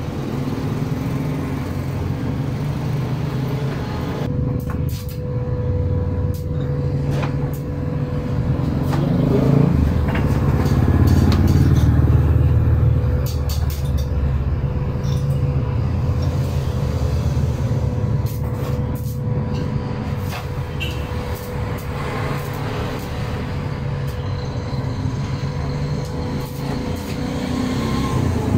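Road traffic going past, a steady low rumble that swells as a heavier vehicle passes about ten seconds in.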